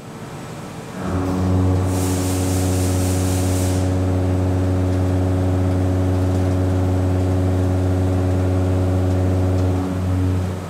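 Walter M4003 face milling cutter (63 mm, five Tiger-tec Gold inserts) face milling St 52-3 steel at 1,112 rpm with a 5 mm depth of cut. It makes a steady low hum at the tooth-passing rate with a stack of overtones, starting as the cutter enters the cut about a second in and dropping off near the end. A brief high hiss comes in between about two and four seconds in.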